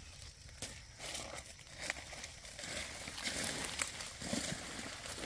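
Dry leaf litter rustling and crunching underfoot in irregular crackles.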